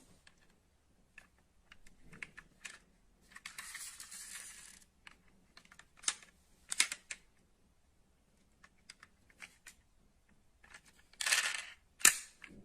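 Die-cast metal model cars being handled: scattered clicks and knocks, with two short stretches of rubbing noise, one about three seconds in and one near the end. The sharpest click comes just before the end.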